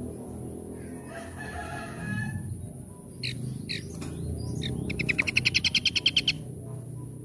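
Songbird singing: a warbling chatter, two sharp falling whistled notes, then a loud, fast trill of about a dozen repeated notes a second lasting over a second.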